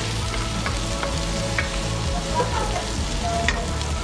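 Sliced onions sizzling in a little oil in a nonstick wok, stirred with a wooden spatula. A couple of light knocks come from the spatula against the pan.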